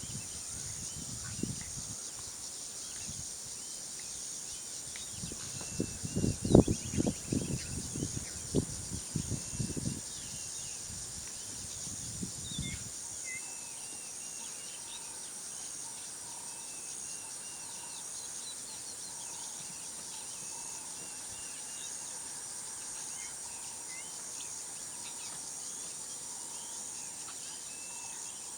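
Steady, finely pulsing high-pitched insect buzzing, with scattered short bird chirps. A cluster of louder low thumps and rustles comes about six seconds in and dies away by about thirteen seconds.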